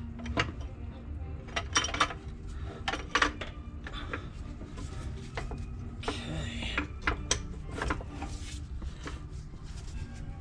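Scattered metallic clinks, taps and knocks as metal parts and fittings around a Rolls-Royce Phantom I's clutch and bell housing are handled by hand, with a brief scraping rub about six seconds in, over a steady low hum.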